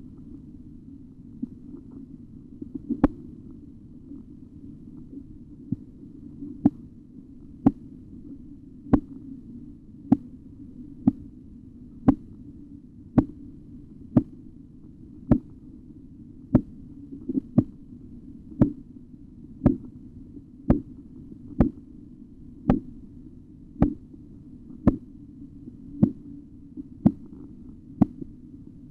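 Korotkoff sounds heard through a stethoscope as a blood-pressure cuff deflates. A couple of faint taps are followed, from about three seconds in, by clear sharp taps about once a second over a low rumbling hiss. The first clear tap marks systolic pressure.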